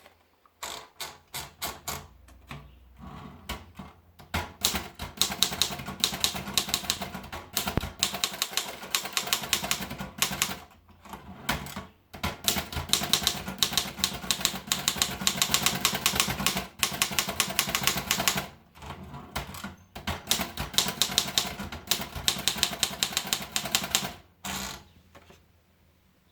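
Erika Model 11 portable manual typewriter being typed on: rapid key strikes in long runs, broken by several short pauses.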